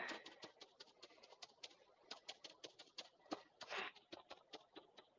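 Faint, soft taps of black chalk paint being dabbed through a stencil, an irregular run of about three or four dabs a second.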